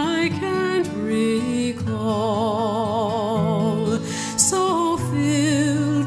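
Slow background music with long notes held with vibrato.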